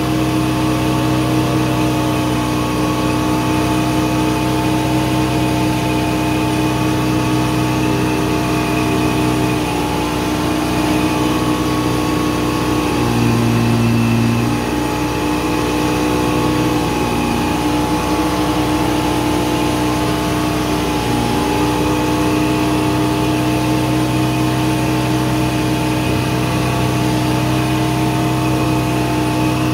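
Old log skidder's engine running steadily, heard from the operator's cab. About ten seconds in its pitch sags for a few seconds and it grows slightly louder, then it settles back to the same steady note.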